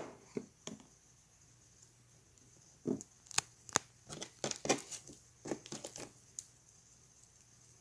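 Homemade glue-and-detergent slime being squeezed and kneaded by hand, making irregular sticky clicks and pops. The clicks come in a few quick ones at first, then a busier run in the middle.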